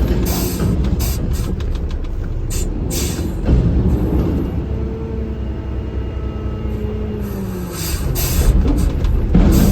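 Truck engine and road noise heard inside the cab while driving, a steady low rumble with scattered clicks and knocks. About five seconds in, a pitched engine tone slowly falls over a few seconds as the truck slows.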